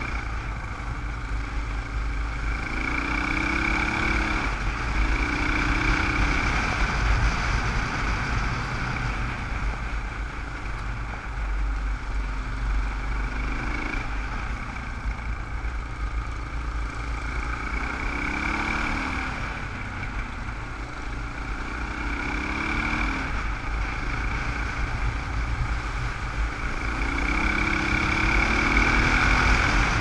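Dual-sport motorcycle engine running under way on a gravel road, with wind rumbling on the helmet-mounted camera. The engine note climbs several times as the rider opens the throttle.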